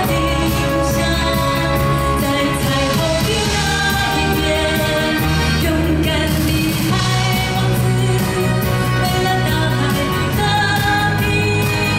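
A female vocalist sings live with a pop band of electric guitar, keyboards and drums, over a steady beat.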